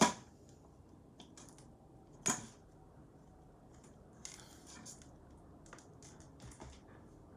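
Fingers picking at a shrink-wrapped smartphone box that will not open: two sharp knocks about two seconds apart, then light scratching, clicking and crinkling of the plastic wrap.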